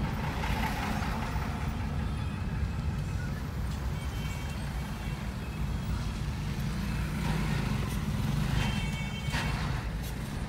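Road traffic heard from inside a car creeping along in a jam: a steady low rumble of engines and tyres, muffled by the cabin, with trucks, motorcycles and auto-rickshaws close by. A brief high tone sounds about four seconds in and again near nine seconds.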